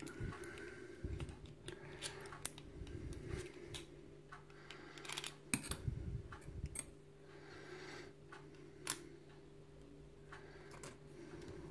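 Scattered small metal clicks and scrapes from a cheap padlock's loose internal plates and pins being worked apart by hand, over a faint steady hum.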